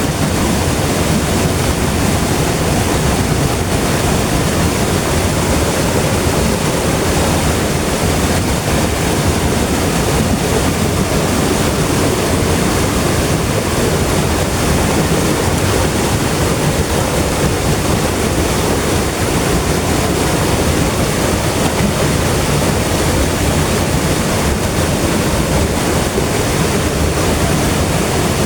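River water rushing and flowing in a steady, even wash.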